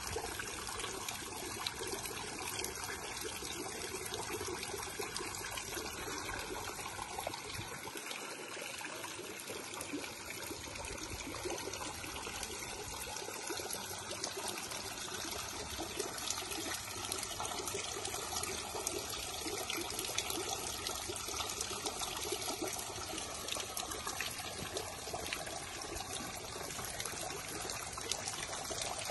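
Thin water jets from spouts along a narrow brick garden water channel, falling into the water and trickling and splashing steadily.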